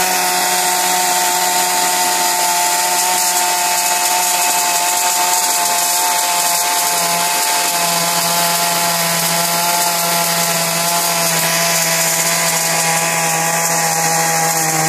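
Chainsaw running continuously at a steady speed, its pitch shifting slightly about halfway through.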